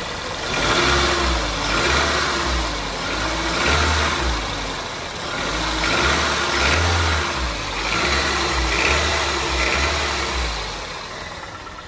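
Toyota 1ZZ-FE 1.8 L four-cylinder engine, still cold just after start-up, revved up and back down in a series of about six blips. It has a noise the owner suspects is rod knock or a stretched timing chain, which a new timing chain tensioner has not cured.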